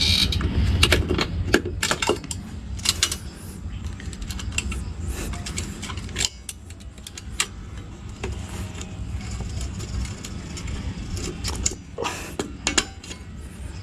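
Scattered sharp metallic clinks and clicks of a pointed spring tool and steel exhaust springs being hooked onto a scooter's aftermarket exhaust pipe, bunched at the start and again near the end.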